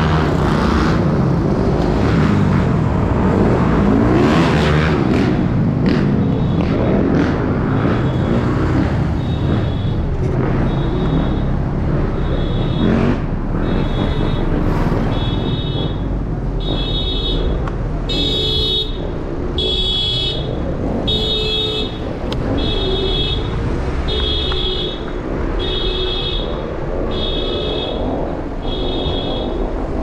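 City street traffic and road noise heard from a moving scooter, with heavy low rumble on the microphone. From about ten seconds in, a short electronic beep repeats about once a second, growing louder toward the middle and then easing off.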